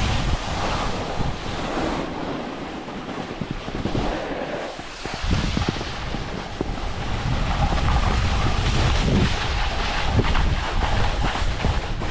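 Wind buffeting the camera microphone while moving downhill on a ski slope, over a steady hiss and scrape of snow sliding past. The low buffeting eases a few seconds in and comes back stronger after about five seconds.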